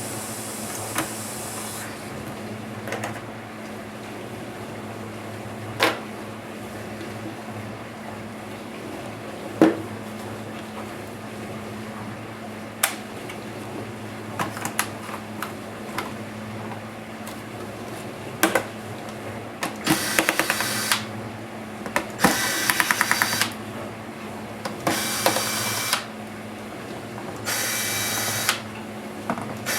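Small electric screwdriver running in short bursts of about a second each, five or six times in the latter part, backing out the laptop's case screws. Before that come scattered sharp clicks of screws and small parts being handled.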